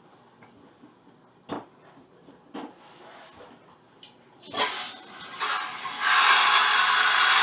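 Toilet flushing: a few small clicks and knocks, then a rush of water that starts about four and a half seconds in and settles into a loud, steady rushing from about six seconds.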